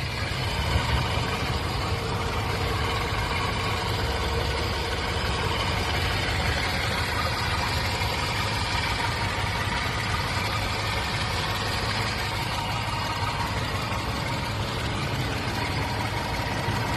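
Chevrolet Sprint 1.0-litre three-cylinder engine idling steadily while cold.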